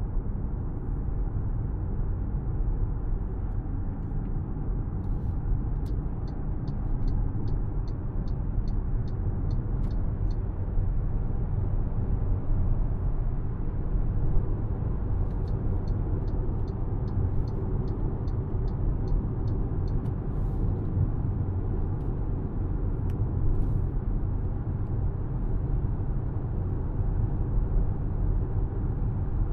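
2025 MG HS being driven: a steady low rumble of road and engine noise. Twice, a run of even turn-signal ticking, about three ticks a second, goes on for about four seconds, first about six seconds in and again past the middle.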